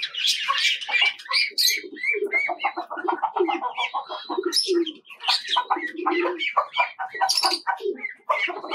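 Busy mixed birdsong from an aviary: caged budgerigars and finches chirping and chattering, with pigeons cooing and chickens clucking among them. The calls are many and short, overlapping without a pause.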